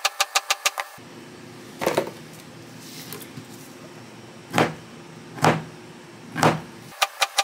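Chef's knife chopping fast through a log of cookie dough onto a silicone baking mat, about seven quick cuts a second. The chopping stops after about a second and gives way to a low hum and four separate louder knife strokes as the slices are worked aside. Rapid chopping starts again near the end.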